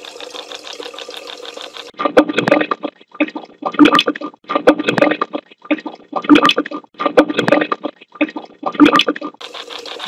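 A steady rush of running water for about two seconds. Then the phone's noise-filtered recording plays back as about seven choppy, muffled bursts: garbled fragments that an AI speech filter has left from the water noise.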